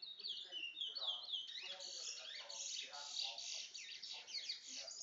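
Towa towa finch singing: a fast, continuous run of high chirps and trilled notes that grows busier about a second and a half in.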